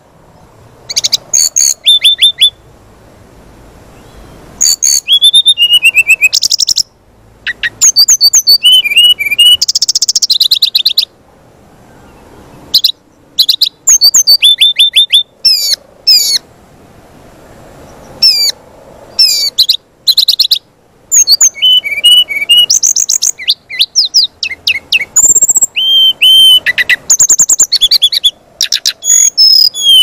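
Brown-chested jungle flycatcher (sikatan rimba dada coklat) singing: bursts of rapid high chirps, trills and short falling whistles, in phrases broken by brief pauses.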